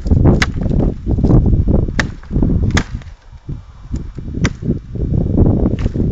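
Gränsfors Bruks Scandinavian Forest Axe chopping into wood: several sharp cracks of the blade striking, four of them clear and spaced one to two seconds apart, over wind rumbling on the microphone.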